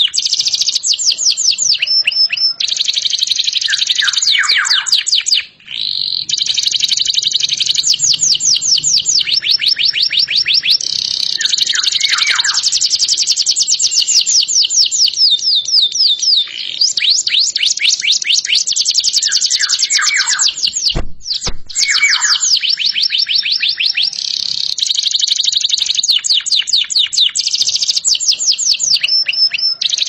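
Domestic canary singing a long, loud song of rapid high trills and rolls, broken now and then by short lower notes that slide downward. The song pauses briefly twice, once early and once about two-thirds of the way through.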